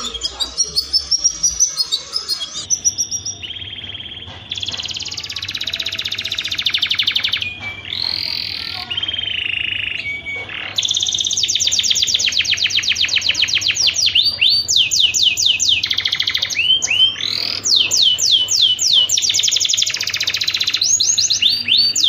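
Domestic canary in breeding song: long rolling trills of very fast repeated notes, then from about the middle on, quick runs of downward-sweeping whistled notes, with short breaks between phrases.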